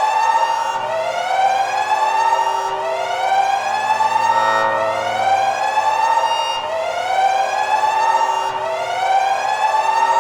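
Countdown timer's end alarm: a siren-like wail that rises in pitch over about two seconds, drops back and rises again, repeating steadily.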